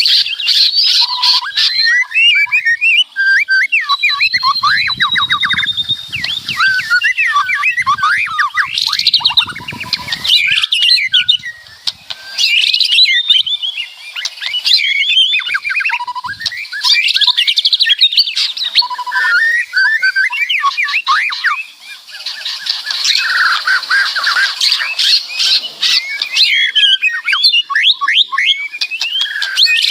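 White-rumped shama singing loudly and almost without pause: a varied song of whistled phrases, fast trills and harsh rattling chatter, broken only by a couple of brief gaps.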